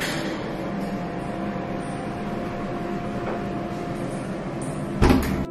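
Steady rumbling background noise with a faint hum, broken by one short, loud thump about five seconds in.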